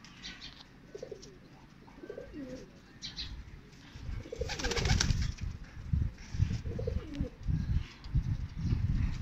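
Domestic pigeons cooing several times. From about four seconds in there is a flurry of low thumps and rustling, loudest around the fifth second.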